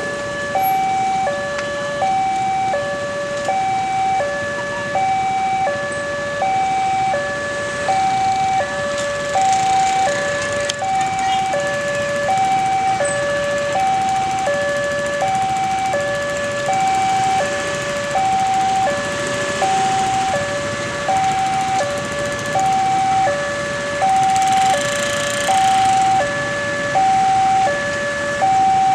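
Railway level-crossing warning alarm sounding, an electronic two-tone chime with a higher and a lower tone alternating evenly, one high-low pair about every 1.3 seconds, while the crossing is closed for an approaching train.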